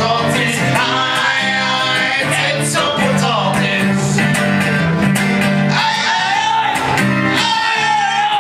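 A small live band performing a song: a guitar strummed under a man singing into a microphone, amplified through a PA, with a long held sung note near the end.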